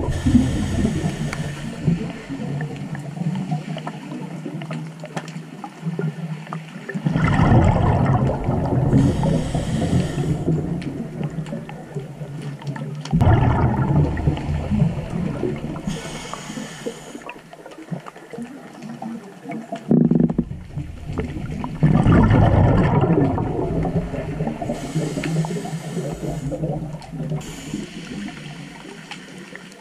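Scuba diver breathing through a regulator underwater. Loud bubbling bursts of exhaled air come about every six to seven seconds, with a short hiss of inhaling between them.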